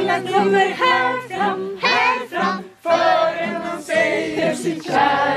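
A group of people singing together without instruments, several voices at once, a traditional Swedish midsummer song.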